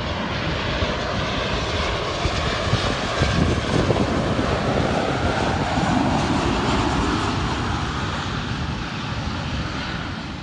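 Airliner's jet engines at high thrust, a loud steady wide-band noise that eases slightly near the end.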